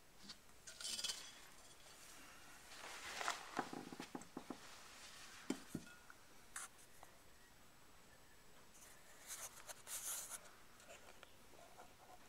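Faint, scattered rustling, scraping and small clicks of hands handling things, in a few short spells: about a second in, through the middle, and again near the end.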